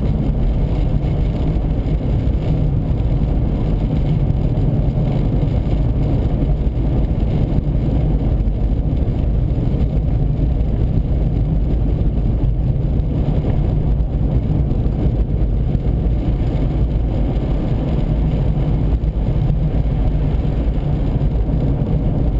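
Steady low rumble of a vehicle driving at highway speed, heard from inside the cabin: tyre, road and engine noise with no change in pace.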